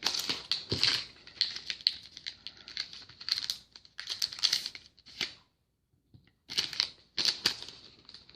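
Foil trading-card pack wrappers crinkling and tearing, with cards being handled and flicked in irregular crackly bursts. There is a short pause a little past halfway.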